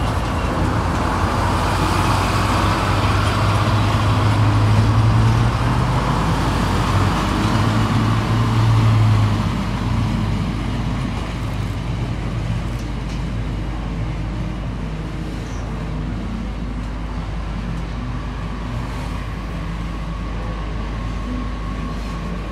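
CPH rail motor pulling away from the platform: its engine runs with a steady low hum over wheel-and-rail noise. It is loudest for the first several seconds, then drops off sharply about ten seconds in and stays at a lower rumble as the railcar draws away.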